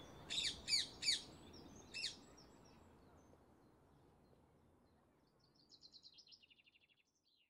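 Small songbirds chirping outdoors: four short, sharp high chirps in the first two seconds over faint outdoor background hiss that fades away. Near the end comes a quick, descending trill of high notes, then one short falling note.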